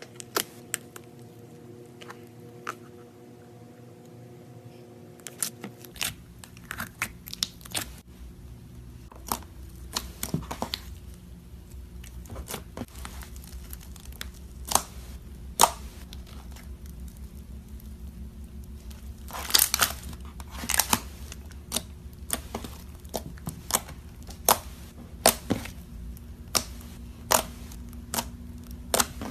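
Slime being pressed and poked by hand, giving sharp irregular pops, clicks and crackles, with a thicker run of crackling about two-thirds of the way through, over a steady low hum.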